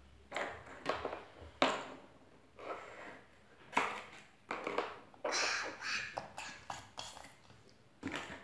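Hollow plastic Kinder Surprise capsule halves knocking and clicking on a tabletop as a baby handles them: a string of irregular light taps.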